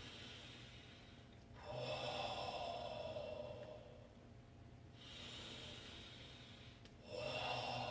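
Long, breathy exhaled 'whoa' sound, the third of the Six Healing Sounds, starting about one and a half seconds in and fading out. A softer breath follows, then a second 'whoa' exhale begins near the end.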